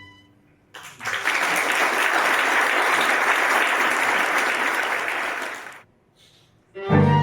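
Audience applauding for about five seconds after a brief silence, breaking off abruptly. A string quartet starts playing just before the end.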